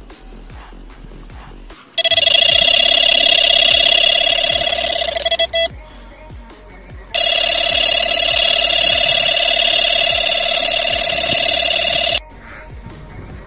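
Electronic carp bite alarm sounding a continuous, high-pitched fluttering tone as a carp strips line in a run. It sounds for a few seconds, breaks off briefly, then sounds again for about five seconds and stops.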